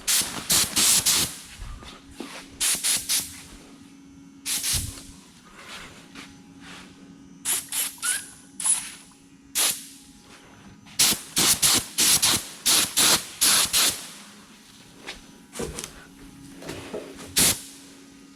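Air-powered paint spray gun spraying primer in short bursts of hiss, trigger pulled and released over and over with gaps between, over a steady low hum.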